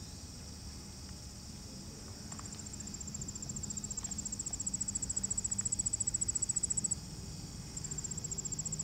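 Summer field insects: a steady high-pitched chorus, joined about two seconds in by one nearby insect's loud, rapid, pulsed high trill, which breaks off around seven seconds in and starts again about a second later.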